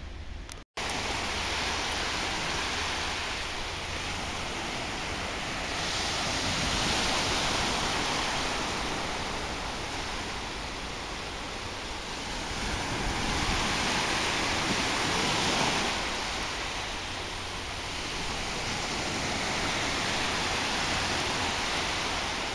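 Small waves of a calm sea breaking and washing up a sandy shore: a steady hiss of surf that swells and fades slowly about three times.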